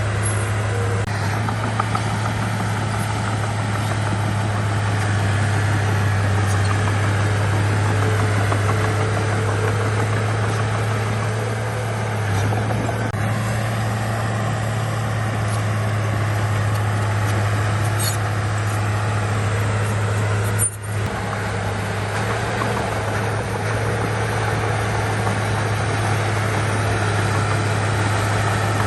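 Heavy diesel engine of earthmoving machinery running steadily with a constant low drone, broken by a very brief drop about 21 seconds in.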